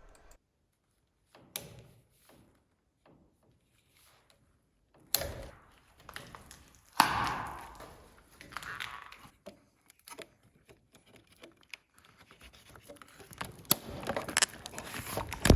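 Hands-on work noises: scattered clicks and thunks, a louder scraping rustle about five to eight seconds in, and busier knocking and clicking near the end.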